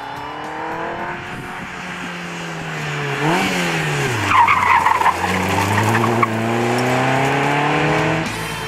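Caterham Seven sports car engine revving hard as the car approaches and passes close by, its pitch dropping sharply as it goes past. The tyres squeal briefly just after the pass. The engine then pulls away with its note climbing steadily through the revs.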